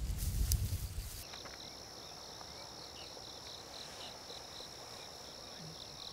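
Insects chirping in a steady high-pitched chorus, with a rapid pulsing trill under it. For about the first second, a low rumble with rustling comes before it.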